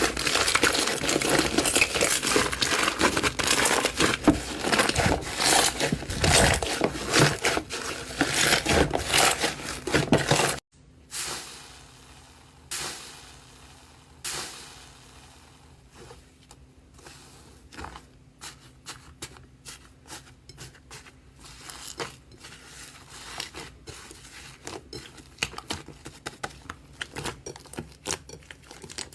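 Slime being squeezed and pressed by hand, giving a dense run of crunchy crackling and crinkling. About ten seconds in it cuts to a much quieter clip of slime being handled, with scattered soft sticky clicks and pops over a faint steady hum. The clicks come more often near the end.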